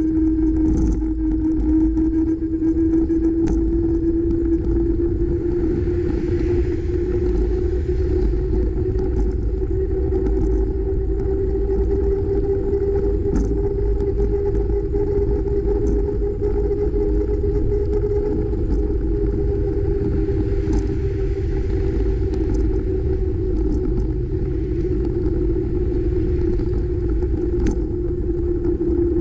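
Riding noise from a moving bicycle: wind rumble on the camera microphone with a steady hum that rises a little in pitch and then settles back, and a few faint ticks.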